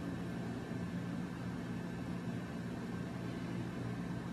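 Steady low hum with a faint even hiss: room background noise, with no distinct events.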